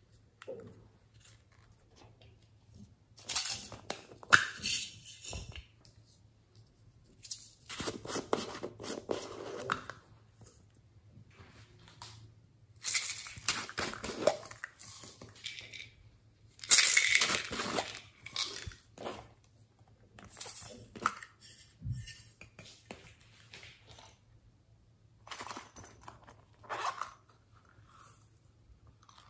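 Hands handling small plastic containers, a glitter compact and a plastic jar: several short bursts of rattling, clicking and crinkling with quiet gaps between them.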